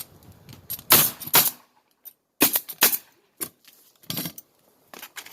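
Roofing nail gun firing nails through asphalt shingles, a string of sharp shots at uneven spacing, about half a dozen, the loudest in pairs about a second and a half to two and a half seconds in.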